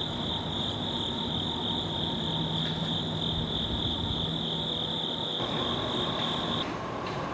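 Crickets trilling in a steady, high-pitched chorus that cuts off near the end.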